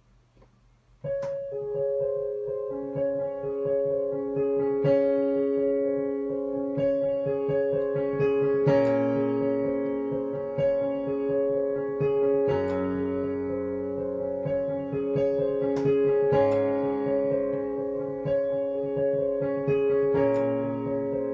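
Digital keyboard played in a piano voice: an instrumental intro of evenly repeated chords over a bass line that shifts every few seconds, starting about a second in.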